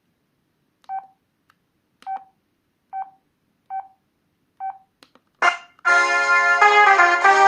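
Sanyo MVP cell phone: five short, identical keypad beeps about a second apart, then about six seconds in a polyphonic ringtone starts playing through the phone's small speaker, a piano-like melody of several notes.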